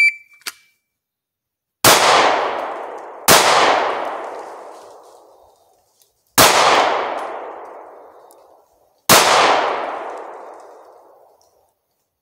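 Four handgun shots fired one at a time at steel targets, unevenly spaced about one and a half, three and almost three seconds apart. Each shot trails off slowly over two seconds or more.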